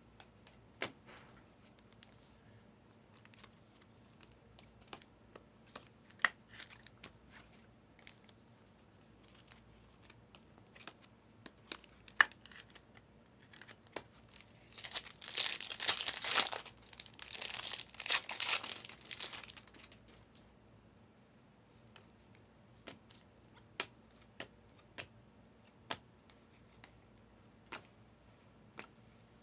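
Shiny trading-card pack wrapper being torn open and crinkled for several seconds around the middle. Light clicks and taps of cards being handled and shuffled come before and after.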